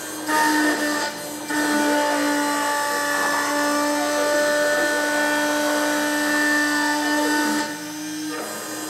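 CNC engraving machine's spindle running with a steady high whine as its cutter engraves lettering and circles into a sign plate, with a gritty cutting noise over it. The sound drops briefly about a second in and again near the end.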